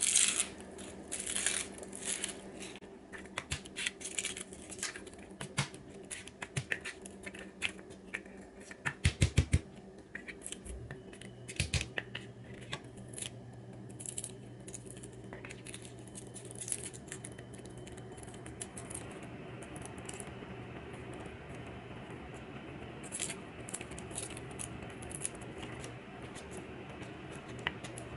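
A cleaver tapping and clicking on a plastic cutting board, with a quick burst of heavy knocks about nine seconds in, then the soft crackle and scratch of garlic cloves being broken apart and peeled by hand.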